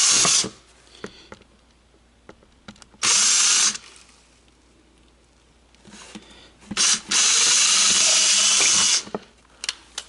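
Power drill with a small bit running in short bursts, drilling pilot holes through a plastic truck door panel: a brief run ending about half a second in, another about 3 s in, then a short blip and a longer two-second run near the end.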